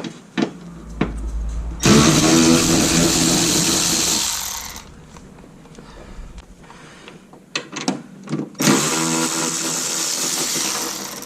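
Cordless power drill/driver fitted with an 8 mm socket, run twice on the headlight fasteners: a run of about three seconds, then another of about two and a half seconds near the end, each spinning up with a whir. A few light clicks come in between.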